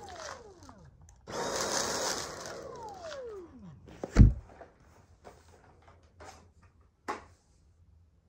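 Dyson V8 cordless stick vacuum's motor run in a short burst, then spinning down with a falling whine, as it is tried out for a suspected clog at the entrance to the bin. A heavy thump follows just after, and a sharp click near the end.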